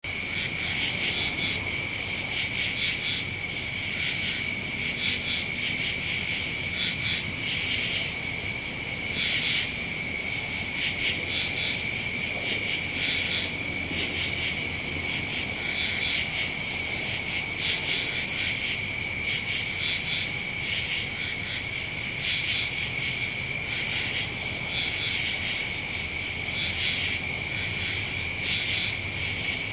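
Night chorus of crickets and other insects: one steady high trill runs throughout, with many insects chirping in quick, overlapping pulses above it. A second, even higher steady trill joins about two-thirds of the way through.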